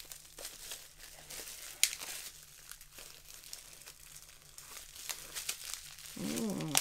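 Bubble wrap crinkling and rustling as it is pulled open by hand, with scattered crackles and one sharp crackle about two seconds in.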